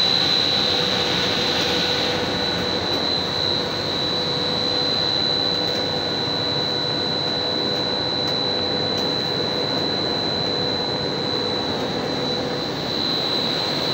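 Blown-film extrusion line for LD (low-density polyethylene) film running: a steady mechanical drone with a high, constant whine over it.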